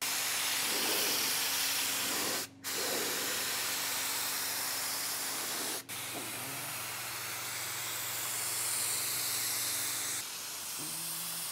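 Compressed-air gravity-feed spray gun spraying thinned primer: a steady hiss of air and atomised paint, broken sharply twice, with a steady low hum underneath.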